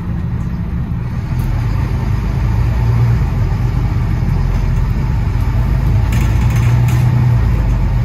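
Bus engine running with a steady low drone that grows louder over the first few seconds, then holds.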